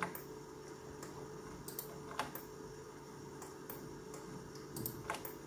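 A scattered handful of sharp clicks from computer keyboard keys and mouse buttons, over a faint steady hum.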